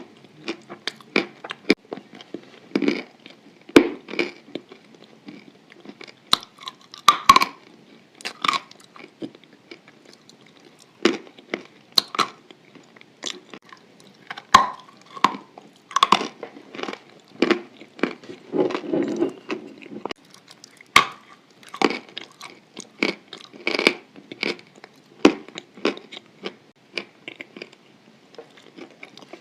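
Close-up chewing of chalk with white clay paste: irregular sharp crunches and crackles as the chalk breaks between the teeth, with softer mouth sounds in between.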